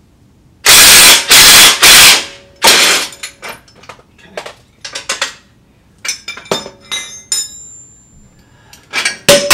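Metal tools knocking and clinking on a suspension bolt as it is worked out of a lower control arm: three loud bangs about a second in, then a run of lighter taps and clinks with a brief metallic ring, and another cluster of clanks near the end.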